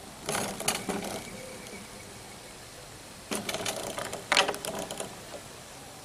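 Clicking and clattering of a green-winged macaw's beak handling a puzzle piece and knocking it into its slot on a shape-sorter board. The clicks come in two bursts, about half a second in and again about three seconds in.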